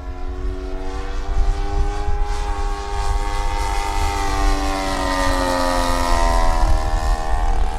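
Engine and propeller of a radio-controlled scale model of a Van's RV-4 airplane, running steadily in flight. It grows louder as the plane approaches, and its pitch drops near the end as it flies past.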